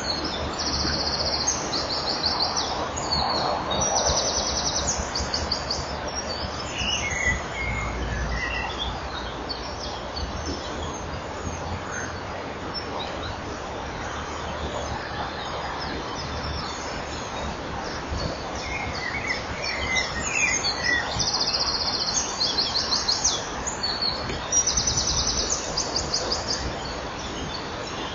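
High-pitched bird calls: rapid trilling runs in two spells, near the start and again about two-thirds of the way through, with a few lower chirps in between. Under them runs a steady hiss and low hum.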